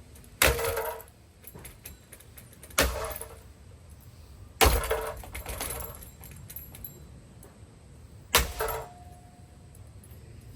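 A Hampton Bay Farmington ceiling fan being smashed: four heavy blows with pauses between them, each a sharp crash with a brief ringing clatter.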